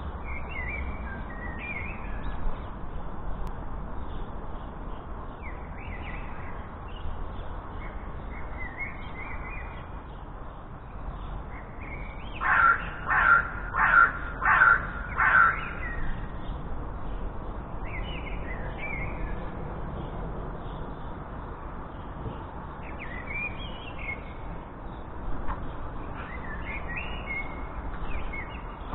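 A corvid calling five times in a row, loud and evenly spaced about three-quarters of a second apart, a little under halfway through. Small birds chirp faintly now and then throughout.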